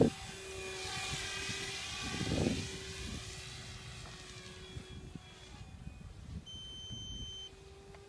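MSH Protos 470 electric RC helicopter lifting off and climbing away, its rotor and motor whine bending in pitch and fading as it gains height.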